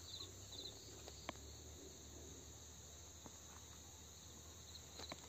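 Near silence: faint room tone with a few faint insect chirps near the start and again near the end, each a quick run of three or four high pulses, and an occasional faint click.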